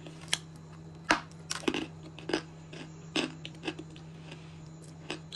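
A person chewing a bite of peschanka edible clay close to the microphone: a string of short, sharp crunches at irregular intervals, about one every half second to second.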